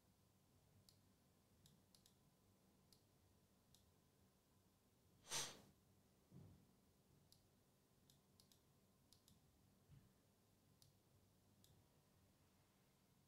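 Near silence: room tone with faint, scattered clicks, one short breathy rush of noise about five seconds in, and a faint low thump just after.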